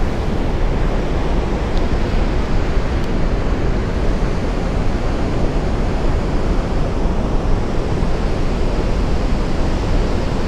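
Water rushing from the partly opened crest gates of a dam spillway and churning in the river below: a steady, loud rush with no breaks.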